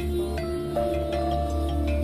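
Calm new-age background music: held tones that change pitch every second or so over a steady low drone.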